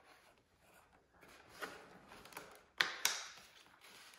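Hands handling parts and wiring inside a foam model jet's fuselage: faint rustling, with two sharp clicks close together about three seconds in.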